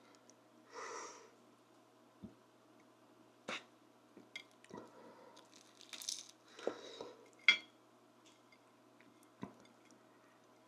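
Close-miked eating sounds: scattered clicks and clinks of a utensil against a plate, with a few soft mouth and chewing noises. A single sharp click about seven and a half seconds in is the loudest.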